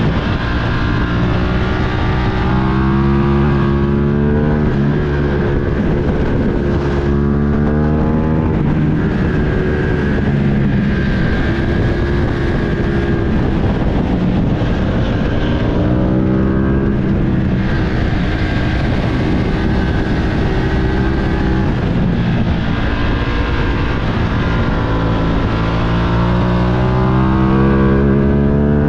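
Ducati Streetfighter V2's V-twin engine heard from on the bike over wind rush, repeatedly revving up through the gears and dropping back as the bike accelerates, shifts and slows.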